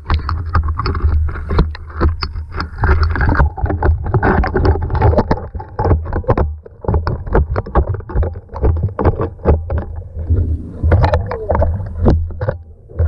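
A magnet on a long pole being worked down a street drain: many irregular knocks and clatters, with sloshing, over a steady low rumble.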